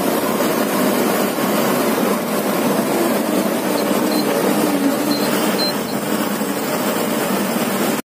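Truck on the move heard from inside the cab: a loud, steady mix of engine, road and wind noise that cuts off suddenly near the end.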